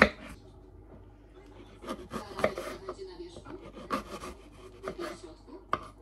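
A kitchen knife slicing through an apple on a wooden chopping board: separate cuts, each ending in a knock of the blade on the board.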